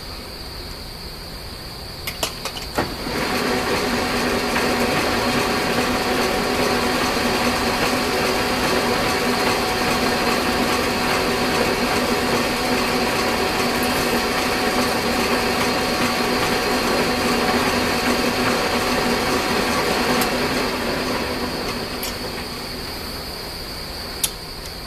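Metal lathe with a quarter-inch carriage bolt held in its three-jaw chuck: a few clicks, then the lathe starts about three seconds in, runs steadily with a humming motor, and after about 17 seconds is switched off and coasts down to a stop.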